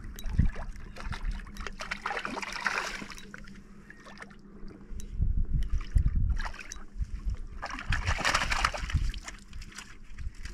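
Water splashing in rocky shallows as a hooked rainbow trout is landed by hand. There are irregular splashes and short knocks, busiest about a second in and again near the end.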